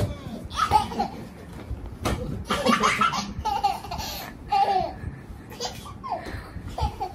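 A toddler laughing in repeated short bursts of giggles.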